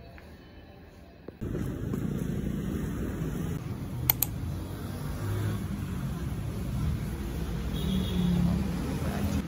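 A quiet indoor hush, then about a second and a half in, the sound of a city street: a steady low rumble of passing cars and engines, with a brief click about four seconds in.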